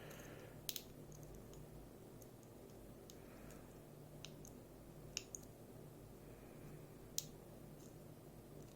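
A few faint, sharp metallic clicks of a small tool working a part off a Goal V18 dimple lock's body, the sharpest about seven seconds in, over a faint low steady hum.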